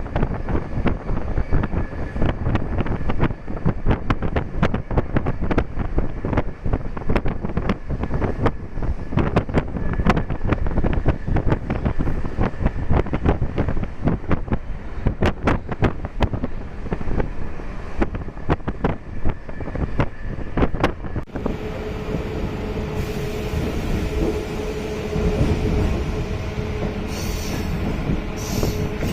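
MEMU electric passenger train running, with a dense, irregular clatter of wheels and carriage rattle on the track. About two-thirds of the way through, the clatter gives way to a steadier rushing sound with a low hum.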